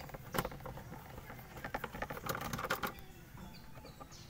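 Light clicks and rattles of an induction cooker's plastic housing being handled during disassembly, with a cluster of them in the middle and a sharp knock at the very end.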